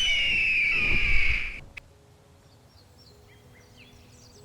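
A bird of prey's scream: one long, high-pitched cry that falls slightly and stops after about a second and a half. Faint short bird chirps follow.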